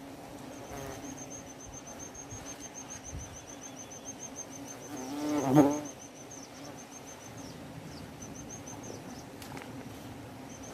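Wasps or hornets buzzing around their disturbed nest in a steady drone; about five and a half seconds in one flies close past the microphone, the loudest moment, its buzz bending up and then down in pitch. A thin, high, rapidly pulsing insect trill runs behind it, breaking off around seven seconds and returning near the end.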